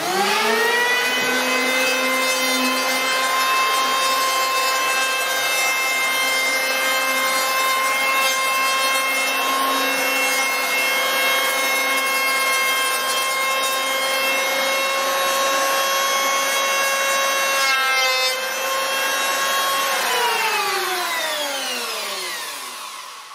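Electric hand planer spinning up, then running at a steady high whine as its blades shave dried glue off a laminated 2x4 bench top in one full-length pass. About three seconds before the end it winds down, its pitch falling.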